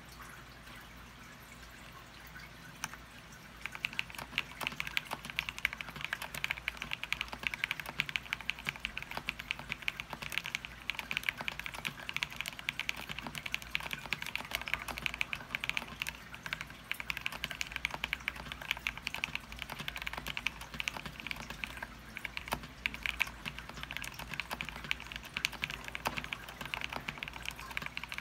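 Fast, continuous typing on a mechanical keyboard in a 3D-printed PLA case, fitted with lubed Tecsee Carrot switches and XMI keycaps. The keystrokes start about three and a half seconds in.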